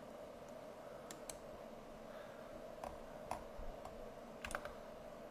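Faint, scattered clicks of computer keyboard keys and mouse buttons, about seven in all, as modelling shortcuts are keyed in. A steady low background hum runs underneath.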